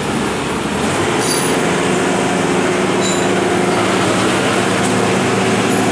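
Bobcat skid-steer loader's engine running steadily, with a low droning hum that grows louder about a second in.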